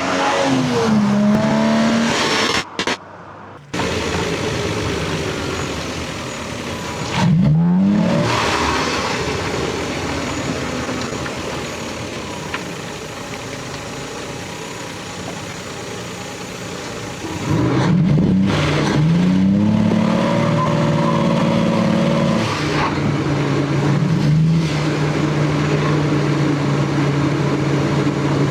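Lexus GS300's 2JZ inline-six engine and stock exhaust running under acceleration, its pitch rising and then dropping several times as it revs and shifts, then holding a steadier note near the end. The sound cuts out briefly about three seconds in.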